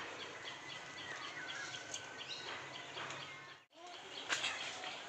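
Birds chirping over steady outdoor background noise, one repeating a short high call about four times a second. The sound drops out briefly near the end.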